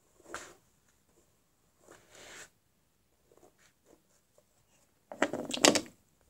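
Hair being brushed and handled close to the microphone: short scraping swishes of a hairbrush, a few faint ticks, then a louder cluster of rustles and clicks near the end.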